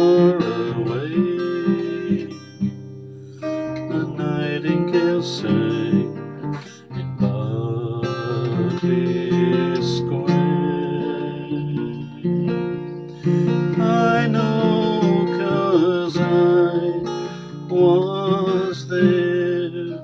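Acoustic guitar strummed and picked in a slow ballad accompaniment, with a man's voice singing along over it.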